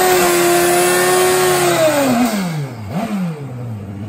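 Turbocharged 1260 cc Kawasaki KZ J-model drag bike engine held at high revs through a burnout, then the throttle closes and the revs fall away. One short blip of the throttle comes about three seconds in, before it settles toward idle.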